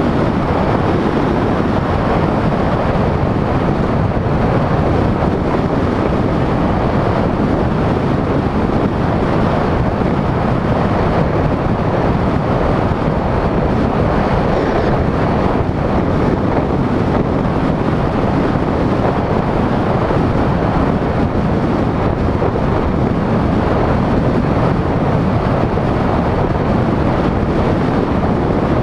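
Steady wind rushing over the microphone of a camera on a moving car, mixed with tyre and road noise at cruising speed.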